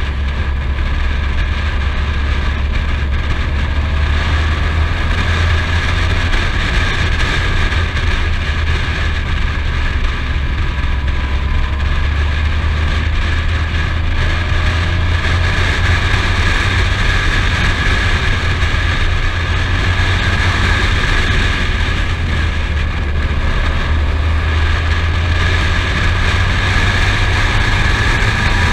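Touring motorcycle under way at steady speed: a steady low rumble of wind and engine on the bike-mounted microphone, with a faint steady whine above it.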